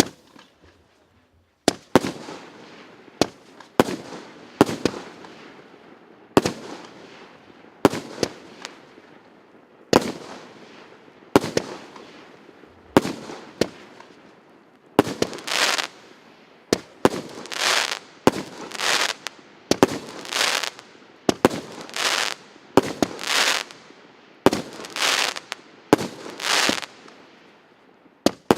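PC865 "Венчальный" firework cake firing shot after shot, about one a second, starting under two seconds in: sharp bangs, and from about halfway each bang is followed by a longer, half-second rushing burst.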